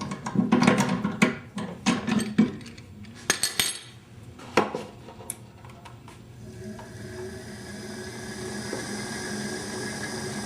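Hard metallic clanks and knocks from tools and parts against the pottery wheel. About six seconds in, a steady hum builds and holds: the wheel's motor and freshly tensioned drive belts running smoothly.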